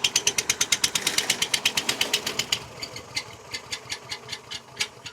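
Small gasoline engine of an SDLANCH SDLLM500 remote-controlled tracked mower chugging in even beats about nine a second, then stumbling into weaker, irregular beats about halfway through and dying away: it is running out of fuel.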